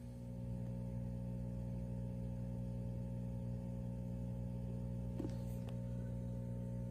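Steady low hum of aquarium equipment, with one faint click about five seconds in.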